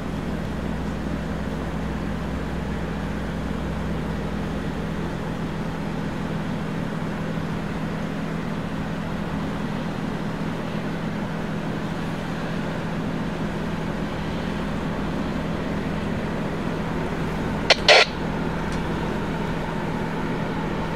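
Steady low hum of a distant freight train approaching, growing slightly louder toward the end, with a brief sharp burst of noise about three seconds before the end.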